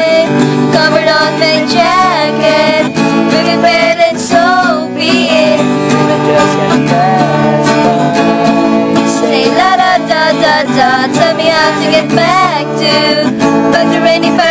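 Song music with no lyrics: acoustic guitar accompaniment under a wavering melody line.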